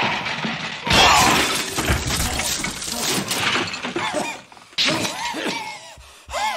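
Glass shattering, a loud sudden crash about a second in that trails off into a noisy clatter, with a second smaller crash near the end.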